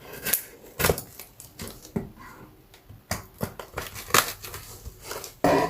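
Cardboard box being opened by hand: tape cut or ripped and flaps and packing handled, a run of irregular scrapes, rips and clicks.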